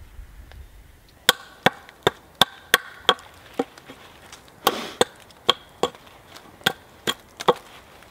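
An axe chopping through a small hardwood pole: a run of sharp, separate chops, about two to three a second, with a short pause partway through.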